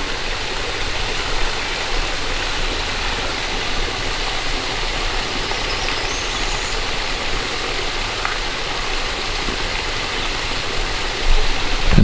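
Steady rushing of a shallow creek running and trickling over sandstone ledges into a pool.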